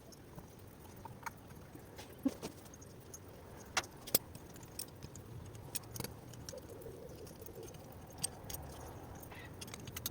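Scattered light clicks and clinks of small metal engine parts being handled and set down during bench assembly of a small two-stroke engine. A few sharper taps come about two and four seconds in.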